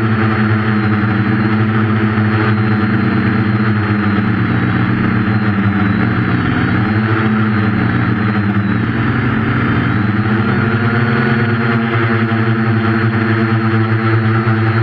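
Quadcopter's 1200kv brushless motors and 8.5-inch propellers running at flight speed, a steady whine whose pitch drifts up and down as the throttle changes, most noticeably in the middle.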